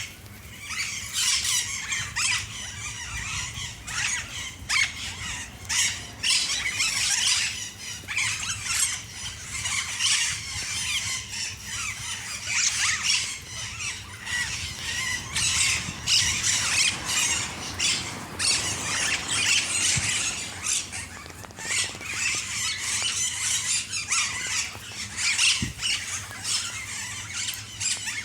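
A flock of austral parakeets (cachañas) chattering, a continuous overlapping din of shrill, harsh squawks from many birds at once.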